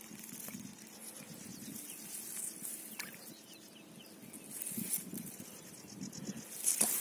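Light splashing and water movement in shallow pond water as a tench is let out of a mesh net by hand and swims away, with a sharper splash near the end.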